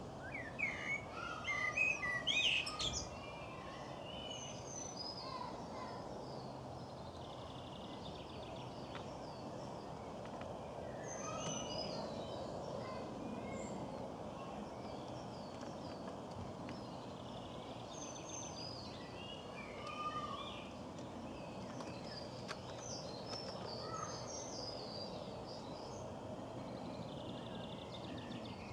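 Garden birds singing and chirping in short calls and trills, loudest in the first three seconds, over a steady background noise.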